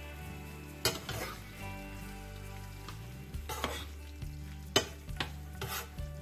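Metal spoon stirring pasta in tomato sauce in a frying pan, with several sharp knocks and scrapes against the pan, over a low sizzle from the pan on the heat.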